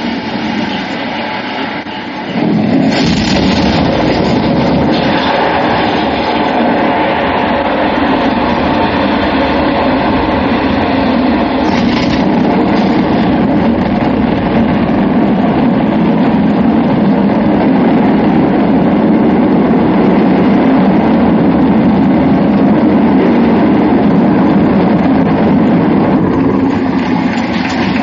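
Space Shuttle launch: a loud rocket roar that starts suddenly about two seconds in and goes on steadily.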